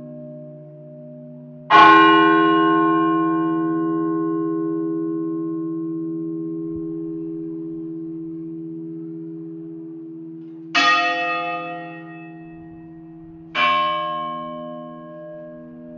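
A large church bell tolling slowly. It is struck three times: about two seconds in, again near eleven seconds, and once more about three seconds later. Each stroke rings on and fades slowly over a low, slowly beating hum.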